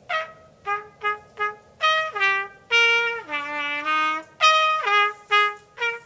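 Solo trumpet playing a melodic line: several short detached notes, then longer held notes that step down in pitch around the middle, then more quick short notes near the end.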